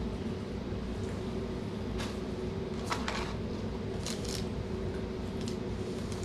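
Close-miked eating sounds: chewing with a few short, wet mouth clicks and smacks, about two seconds in, around three seconds and around four seconds, over a steady low hum.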